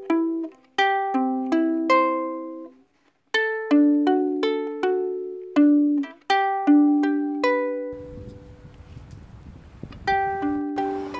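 Background music: a melody of plucked-string notes, each dying away quickly, with short pauses. Near the end the music drops out for about two seconds, leaving only a low steady hiss, then starts again.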